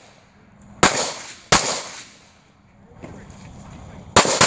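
Handgun shots: two shots about two-thirds of a second apart around a second in, then a quick pair near the end, each crack followed by a short echoing tail.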